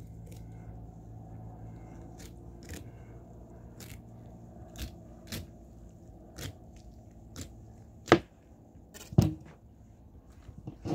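A fillet knife cutting and scraping along a large rainbow trout's backbone on a towel-covered table, with scattered small clicks and taps over a steady low hum. Near the end come two loud sharp knocks about a second apart, from the knife and fish being handled on the table.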